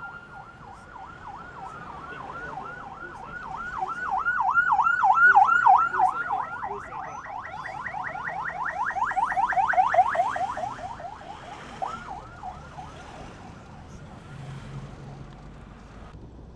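Motorcade escort siren in a fast yelp, its sweeps quickening to a rapid warble, loudest in the middle and then fading away.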